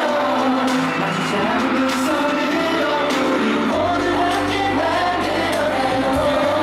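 Live K-pop concert music: singing over a pop backing track. A deep bass comes in about four seconds in.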